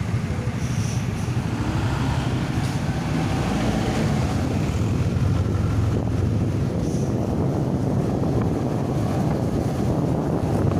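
Steady vehicle engine and road noise with wind buffeting the microphone.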